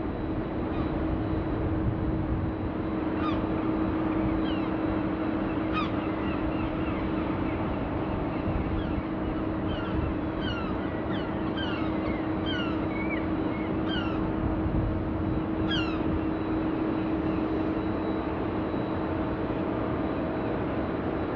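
Steady low hum and background rumble, with a small bird calling in a run of short, falling chirps through the middle.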